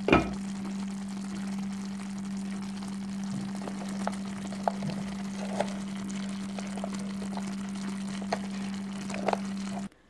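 Chicken pieces and sliced red onion sizzling gently in oil in a clay tajine, with scattered small pops and crackles over a steady low hum. A sharp knock comes right at the start, and the sound cuts off suddenly at the very end.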